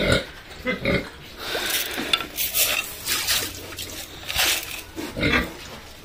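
Pigs grunting in short, irregular bursts close by.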